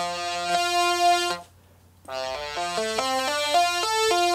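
Synthesizer tone played from a breath-controlled 3D-printed MIDI ocarina. One long held note stops about a second and a half in, then after a short pause comes a quick run of notes stepping up and down.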